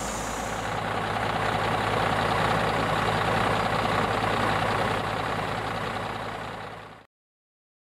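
Heavy paint striping truck's engine idling steadily, a low even hum; it fades down and cuts off about seven seconds in.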